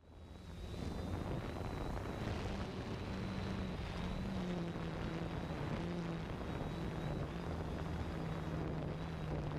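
3DR Solo quadcopter's motors and propellers running steadily in flight, heard from its onboard camera as a steady hum with a faint high whine over a rush of air. The sound fades in from silence at the start.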